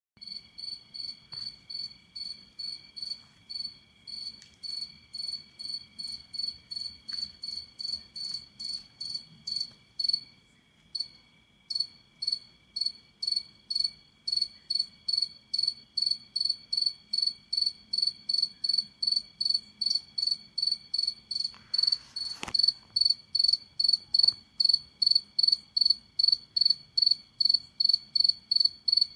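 A cricket chirping in an even rhythm, about two high chirps a second, with a short break about a third of the way through; the chirps grow louder over the second half. A fainter steady high whine runs underneath, and there is a brief rustle about three-quarters of the way through.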